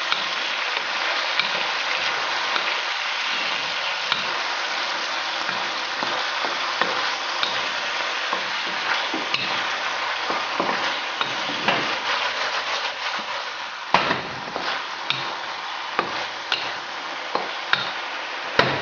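Chicken pieces sizzling steadily in a hot pan with rice wine and soy sauce, stirred with a utensil that clicks and scrapes against the pan more often in the second half. Two sharper knocks of the utensil on the pan, about three quarters through and just before the end.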